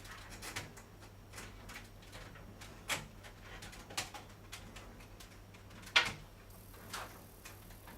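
Scattered clicks and knocks of Ethernet cables and network equipment being handled and plugged in, about five separate taps with the sharpest about six seconds in, over a low steady hum.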